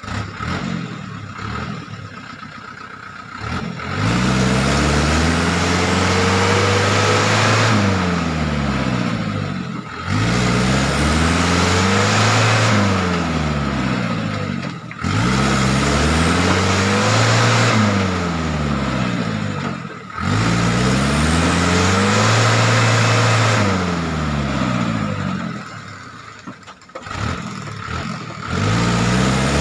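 Truck engine revved up and down over and over, about four times, each climb and fall in pitch lasting about five seconds, after a few quieter seconds at the start.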